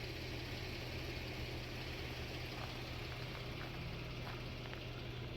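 Vehicle engine running with a steady low hum.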